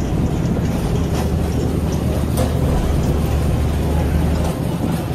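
Boat engine running with a steady low drone, with a couple of faint knocks.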